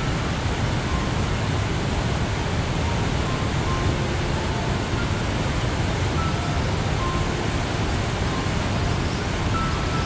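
Large waterfall: wide rapids of river water rushing over and around rock ledges, a steady, unbroken rush heavy in the low end.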